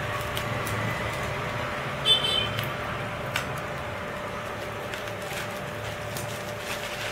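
Bubble wrap around a boxed hard drive being handled and pulled open: scattered crinkles and clicks over a steady background hum. The loudest is a sharp crackle with a brief squeak about two seconds in.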